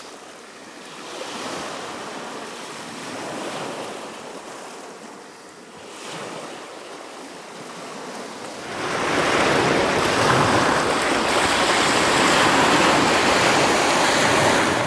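Ocean surf washing on a beach, swelling and ebbing, then turning into a much louder steady rush from about nine seconds in, with wind buffeting the microphone.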